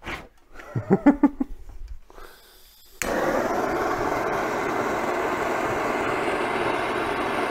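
A few knocks and clinks, then about three seconds in a handheld gas blowtorch lights with a sudden onset and burns with a loud, steady hiss. It is heating a seized handbrake lever held in a vise to free it.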